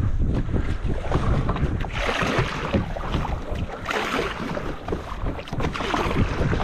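Kayak paddle strokes splashing in sea water about every two seconds, with wind buffeting the microphone.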